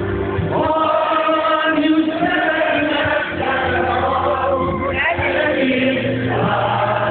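Live concert music with a singing voice from the stage, picked up on a mobile phone's microphone in the audience, with its top end cut off.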